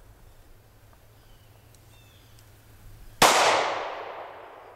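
A single gunshot about three seconds in, sharp and loud, with its echo trailing off over the next second or so.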